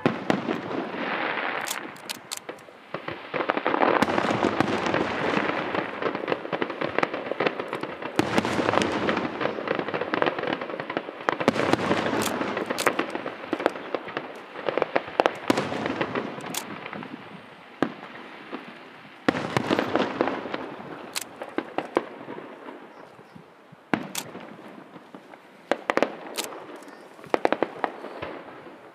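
Aerial fireworks display: shells bursting in repeated salvos, each a rush of dense crackling with sharp pops, easing off near the end.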